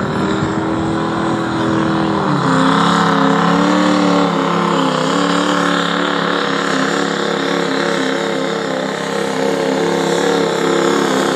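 Turbocharged diesel pulling truck's engine at full throttle pulling the sled. About two seconds in its pitch drops as the load comes on, then it runs hard with the pitch wavering up and down.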